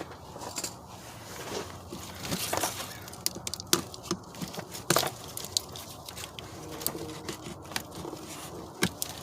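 Scattered sharp plastic clicks and knocks with rustling and scraping as a car's wiring harness is handled and unclipped from its connectors and fasteners.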